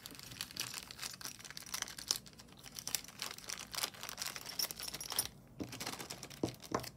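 Plastic bag crinkling and rustling, with small clicks, as pieces of costume jewelry are handled and unwrapped, with a brief lull about five seconds in.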